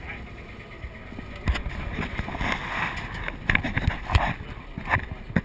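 Steady low drone of the Antonov An-2's nine-cylinder radial engine heard inside the cabin, with irregular knocks and rubbing from the GoPro being grabbed and handled starting about a second and a half in.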